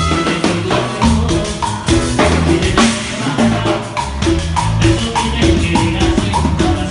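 Live salsa band playing, with the drum kit and percussion hits to the fore over a steady bass line.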